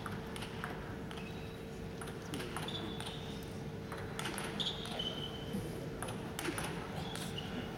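Table tennis rally: the celluloid ball clicking off the rackets and table at an irregular pace, with short high squeaks in between.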